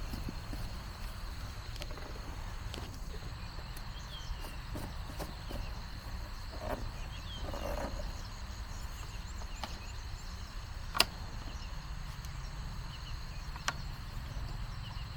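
Outdoor farm ambience: a steady low rumble and a steady high insect-like tone, with scattered short high chirps and a few sharp clicks, the loudest about eleven seconds in.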